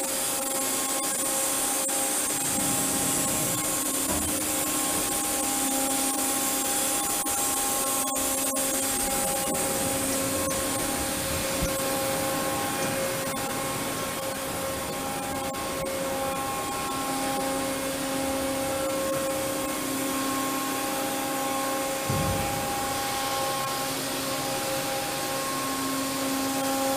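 KAFO KG-10080 gantry machining centre running through an automatic milling-head change: a steady machine hum of several held tones under a hiss that is strongest early on, with a few sharp clicks about eight seconds in and a low thump about 22 seconds in.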